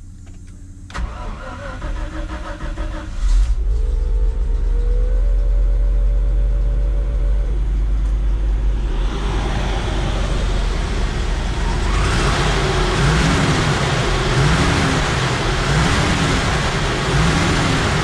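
Small pickup truck's engine being started: the starter cranks about a second in and the engine catches about two seconds later and keeps running, with two spark plugs just replaced to cure a misfire under load. About halfway through it gets louder, with a rushing noise and a pitch that rises and falls.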